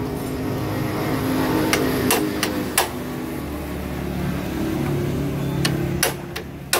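A bit screwdriver tightening the four bolts of the square cover plate on a Honda CD70 engine. It gives scattered sharp metallic clicks, four around two seconds in and three more near the end, over a steady low hum.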